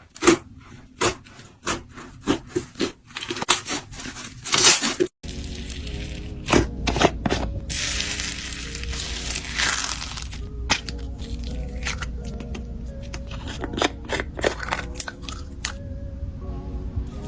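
Slime being pressed and worked by hand, making a quick run of sharp clicks and pops. After a cut about five seconds in, soft background music plays under more scattered clicks and a short hiss.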